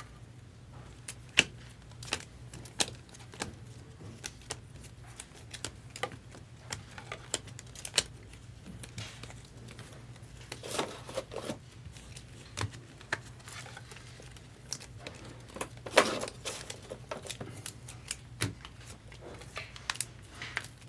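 Scattered light clicks and taps with a few short rustles, the loudest about sixteen seconds in, over a low steady hum.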